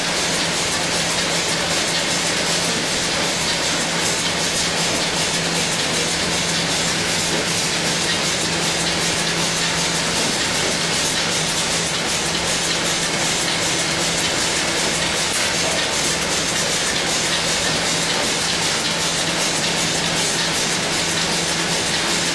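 Automatic cartoning machine with a bottle turntable running continuously: a steady mechanical clatter over a constant low hum.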